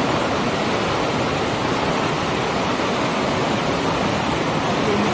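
Djoué River rapids rushing under a bridge: a steady, loud roar of white water.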